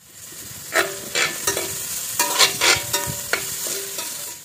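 Chopped shallots, garlic, green chillies and curry leaves sizzling in hot oil in a stainless steel pan, stirred with a metal slotted spoon that scrapes and clinks against the pan several times, each stroke ringing briefly.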